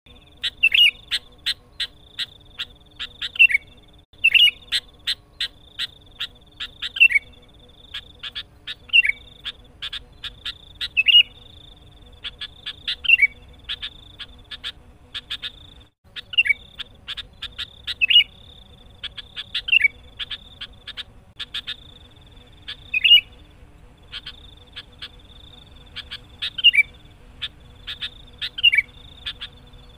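Sooty-headed bulbul (kutilang) calling hard: a rapid run of sharp chattering notes, broken about every two seconds by a short falling whistle. This is the bird's excited challenge to a rival. A steady high-pitched hum runs underneath.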